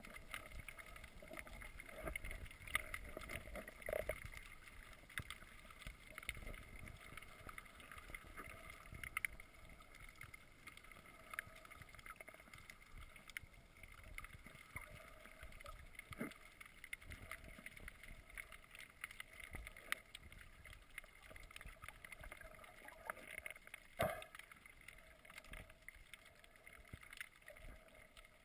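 Faint, muffled underwater ambience heard through a waterproof camera housing: a low hiss with scattered clicks and crackles, and a few louder knocks, the loudest about 24 seconds in.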